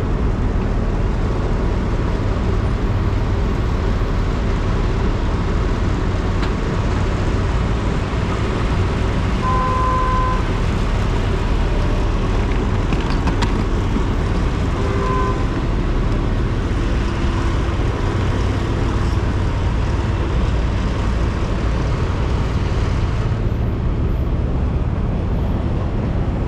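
Busy city street traffic: a steady rumble of engines and road noise, with two short horn-like beeps about ten and fifteen seconds in.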